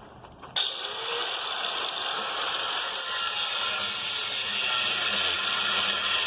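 A power tool starts about half a second in and runs steadily, cutting into the steel of a small safe with a loud hiss.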